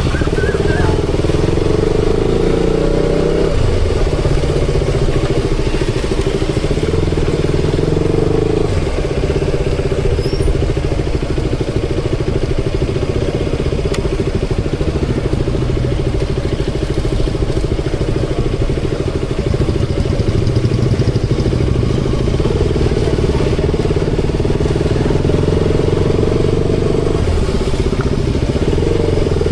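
KTM Duke 200's single-cylinder four-stroke engine running on the move, its note shifting a few times, with road noise underneath.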